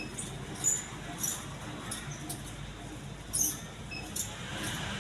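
Majestic Deluxe ceiling fan running with a steady low hum. A few short, high squeaks stand out over it, the loudest about a second in and again past the three-second mark.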